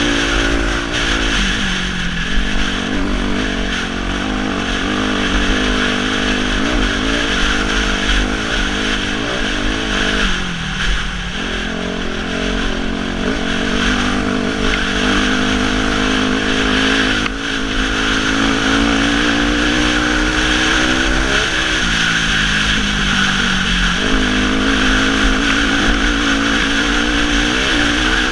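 2006 Suzuki RM-Z250's single-cylinder four-stroke engine pulling hard on a dirt track, its pitch climbing under throttle and dropping sharply at each gear change, several times over. A steady rush of wind noise lies under the engine.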